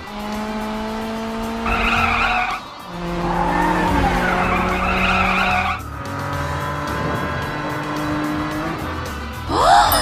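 Cartoon soundtrack of music with car sound effects laid over it. Tyre squeals come about two seconds in and again from about three to six seconds in, and a quick rising sweep comes near the end.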